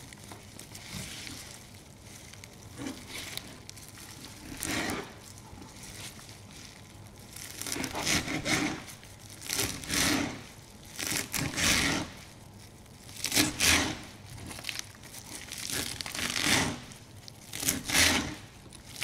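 Knife chopping a bunch of fresh coriander on a cutting board: uneven crunchy cuts through leaves and stems, a few scattered ones at first, then coming quickly, about one or two a second, from about eight seconds in.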